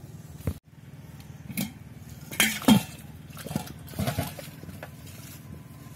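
A metal cooking pot and the metal plate lid on it clattering and clinking as they are handled: a handful of sharp metallic knocks, the loudest a little before the middle.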